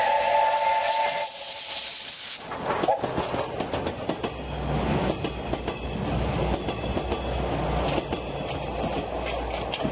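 Steam locomotive's whistle sounding a chord of several tones, which ends about a second in, with a loud hiss of steam that cuts off suddenly about two and a half seconds in. The train's carriages then roll past close by, the wheels clicking rapidly over the rail joints above a low rumble.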